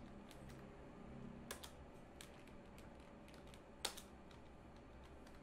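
Faint computer keyboard typing: a scattered run of keystroke clicks, the loudest a little under four seconds in.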